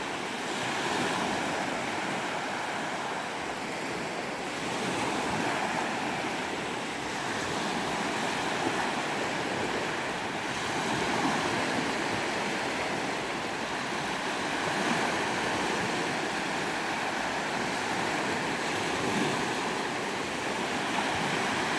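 Surf on the Caspian Sea: a steady rushing of waves that swells and eases every few seconds.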